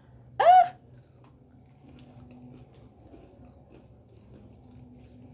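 A woman's short vocal 'mm' sound, rising and falling in pitch about half a second in, then quiet chewing of a solid snack of fried pumpkin seeds with a faint hum now and then.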